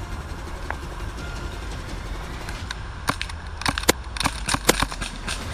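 Airsoft pistol shots: a quick, irregular run of about eight sharp snaps starting a little under three seconds in, over a steady low rumble of wind on the microphone.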